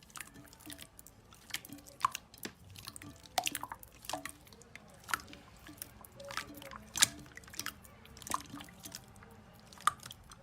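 Slime being squished and worked by hand: irregular wet, sticky clicks and pops, a few every second.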